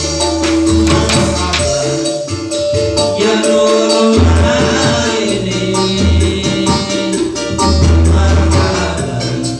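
Live amateur band music with a steady beat: electronic keyboard, hand drums and strummed small guitars, with a man singing through a microphone and amplifier.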